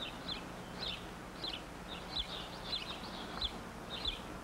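Small birds chirping outdoors: short, high chirps repeating about twice a second, over a faint steady low hum.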